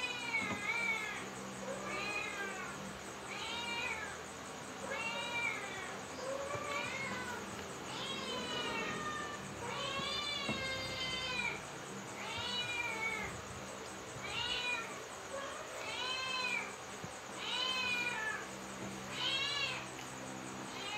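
A cat meowing over and over, about one meow every second and a half, each call rising and then falling in pitch.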